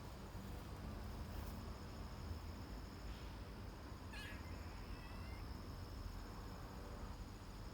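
Faint animal calls: a short wavering call about four seconds in and a briefer one about a second later, over a steady high thin tone.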